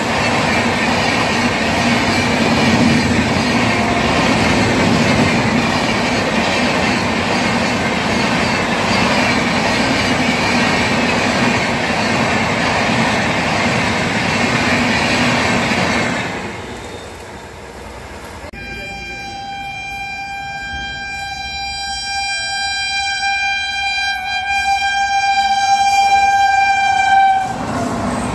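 Indian Railways express train running past at speed: a steady rumble and clatter of wheels on rail for about sixteen seconds. The noise then falls away. About two seconds later, a long, steady single-pitched electric locomotive horn sounds for about nine seconds while the approaching train grows louder. It breaks off abruptly near the end into the noise of a locomotive passing close by.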